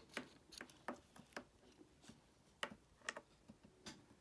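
Faint, irregular light clicks, about ten of them spaced unevenly, over near silence.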